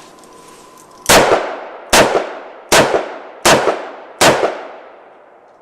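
Five shots from a lightweight Smith & Wesson 360 revolver firing .357 Magnum, about three-quarters of a second apart, each with a short ringing echo.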